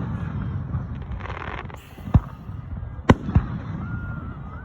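Fireworks going off: three sharp bangs, one about two seconds in and two close together about a second later, over a steady low background rumble, with a thin whistling tone near the end.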